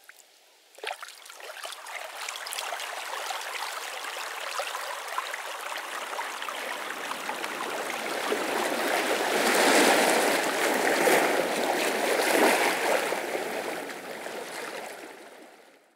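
Running water, steady and without a beat, that builds up over the first few seconds, is loudest in the middle and fades out near the end.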